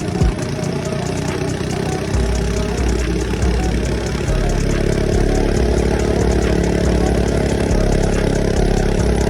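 Mini bike's small engine running steadily, getting louder about two seconds in and settling into a steady higher drone from about four and a half seconds, with a short knock just after the start.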